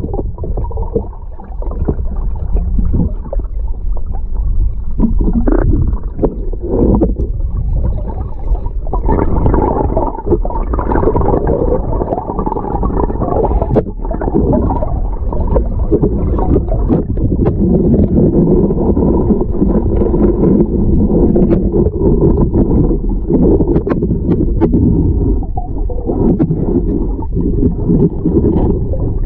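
Muffled underwater rumbling and gurgling of river water, picked up by a submerged camera moving along the riverbed.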